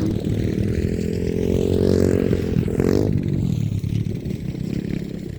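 An off-road vehicle's small engine revving up under acceleration for about three seconds. About three seconds in it drops off sharply and runs on at a lower pitch.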